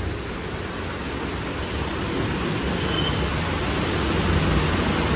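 Steady rain falling: an even hiss that grows slightly louder.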